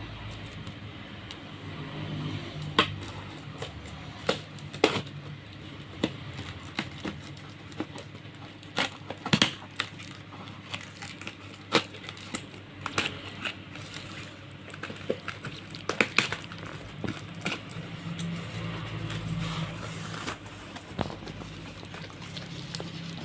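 Packaging of a diecast model car being handled and opened: irregular sharp clicks, taps and crinkles of plastic and cardboard, over a low steady hum.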